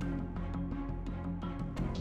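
Background music: an instrumental track with sustained low notes and a steady percussive beat.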